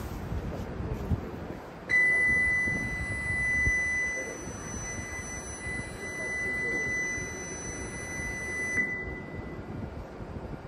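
Shinkansen platform departure buzzer sounding one steady high tone for about seven seconds, the warning that the train is about to close its doors and leave.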